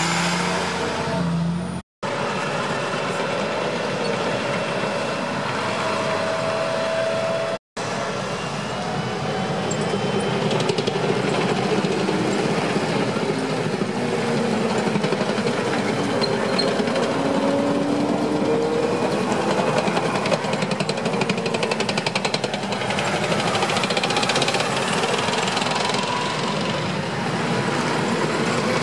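A column of M1 Abrams tanks driving past, their gas-turbine engines running and their steel tracks clattering in a fast, continuous rattle, with a few wavering squeals. In the first two seconds a military cargo truck towing a water trailer passes, and the sound cuts out completely for a moment twice in the first eight seconds.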